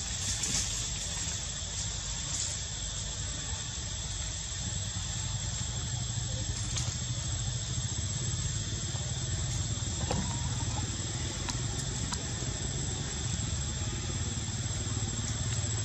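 Steady low engine-like drone with a constant hiss above it.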